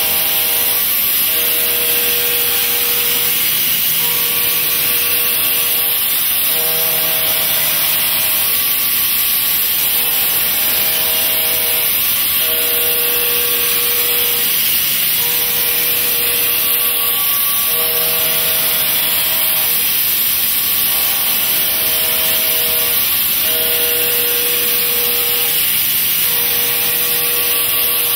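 Indexable-insert milling cutter machining steel in a mill: a steady, loud hiss strongest in the high range, with faint tones underneath that shift every second or two.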